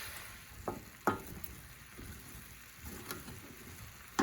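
Bok choy and garlic sizzling gently in oil in a frying pan, with a few sharp clicks of a utensil against the pan as it is stirred.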